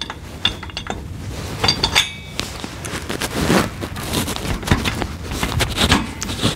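Metal clinking and scraping as a quick-hitch adapter bracket is wiggled and lined up onto a tractor's lower three-point lift arm, with a couple of sharp ringing clinks near the start and about two seconds in.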